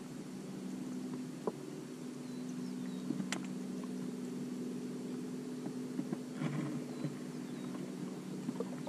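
A boat motor running steadily with a low, even hum, and a single sharp click a little over three seconds in.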